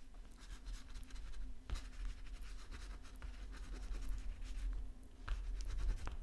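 A small white crayon-like stick scratching across watercolour paper in short strokes, with a couple of soft knocks about two seconds in and near the end.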